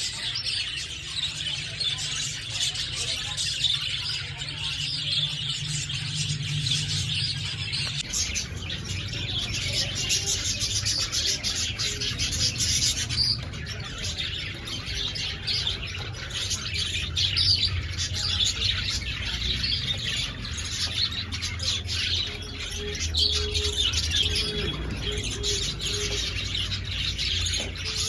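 A flock of caged budgerigars chattering and chirping, many birds at once and without a break.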